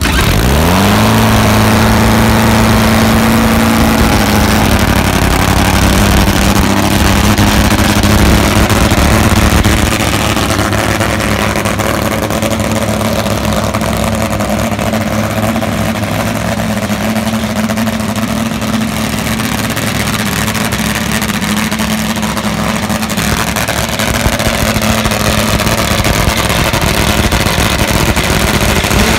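Nitromethane-fuelled Top Fuel drag motorcycle engine, just fired on the starter, rising in pitch in the first second and then idling loudly and evenly. The note settles a little lower after about four seconds.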